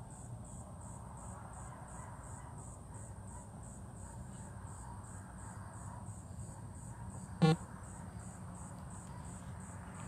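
Insects chirping in a steady high-pitched pulse, about three pulses a second, over a low background hum. A single short, loud blip sounds about seven and a half seconds in.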